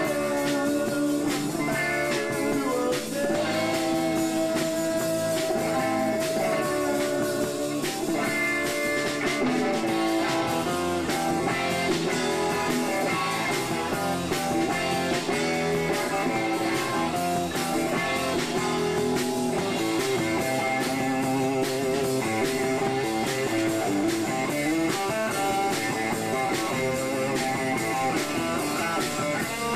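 Live rock band playing a long instrumental stretch at a steady loudness: guitar lines over a drum kit, with cymbal and drum hits keeping the beat.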